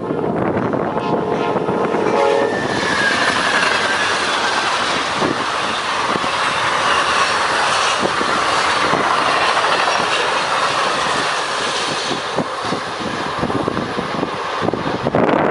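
A train's horn sounds for about two seconds, then the train passes close by, its wheels clacking over the rail joints in a dense, steady rush of noise.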